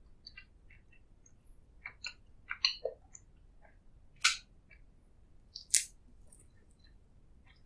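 Close-miked eating sounds: chewing with scattered short wet mouth clicks and smacks, and three sharper, louder smacks or bites about two and a half, four and a half and six seconds in.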